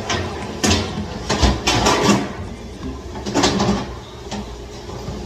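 Metal cooking pots clattering and knocking as they are handled and scrubbed in dish washing, with several uneven knocks.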